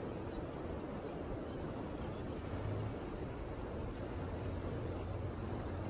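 Outdoor ambience: steady background noise with a low hum underneath and small birds chirping briefly, a few chirps early on and again after about three seconds.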